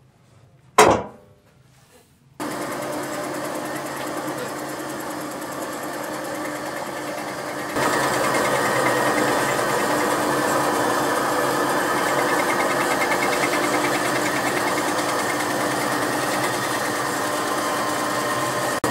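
A single sharp knock under a second in, then a wool brushing machine's bristle roller running steadily from about two seconds in, growing louder about eight seconds in as a sheepskin's wool is worked against it.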